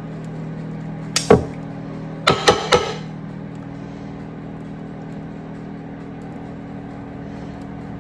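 Kitchen clatter of metal tongs and a roasting pan: one sharp knock about a second in, then three quick knocks around two and a half seconds in, over a steady low hum.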